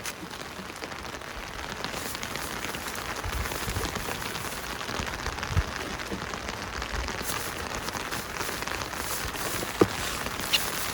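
Steady rain falling, with many small drop ticks, building a little over the first two seconds. A couple of louder single drops or knocks stand out about halfway through and again near the end.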